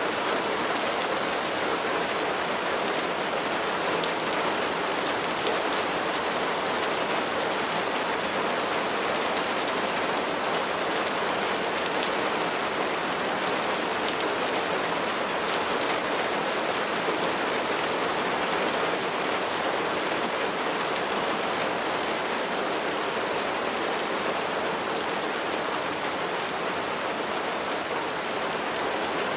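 Steady heavy rain falling on a hard surface: a dense, even patter of drops that keeps up without letting off.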